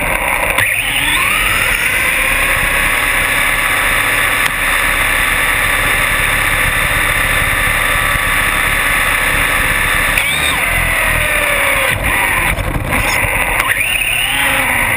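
Novak Ballistic 8.5 brushless motor of an RC buggy running under throttle, its high whine rising in pitch as it speeds up just under a second in, then holding steady over tyre and drivetrain noise on asphalt. The whine falls as it slows about ten seconds in and rises again near the end as it accelerates.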